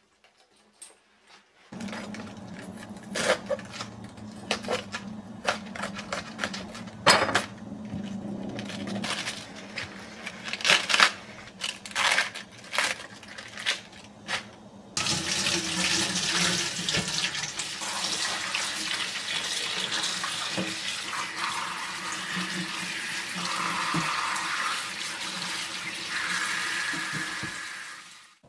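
Lettuce leaves being torn apart by hand on a plastic cutting board, a run of irregular sharp crunchy snaps. About halfway in, a kitchen tap starts running steadily into a stainless steel sink as the leaves are rinsed in a colander.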